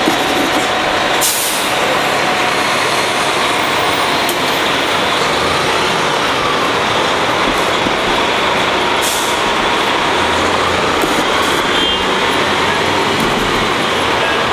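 NovaBus RTS-06 city bus with its Detroit Diesel Series 50 engine running as it drives off, under a loud, steady traffic rumble. Two short hisses come about a second in and again about nine seconds in.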